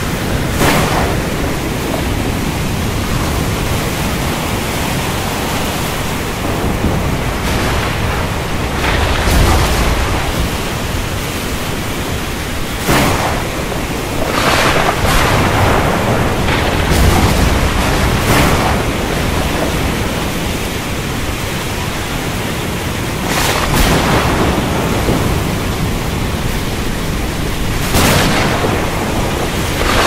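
Heavy rain falling steadily, with thunder cracking and rumbling about ten times, every few seconds.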